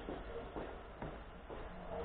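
Footsteps on a paved platform, about two steps a second, over a faint low rumble.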